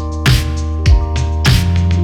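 Electronic background music: a drum hit about every 0.6 seconds over sustained synth chords, with the chord changing about three quarters of the way through.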